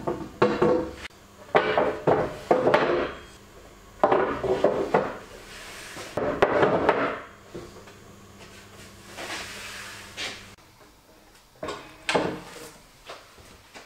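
Heavy black walnut boards being set down, slid and shifted on a steel frame and against each other: irregular clusters of wooden knocks and scrapes.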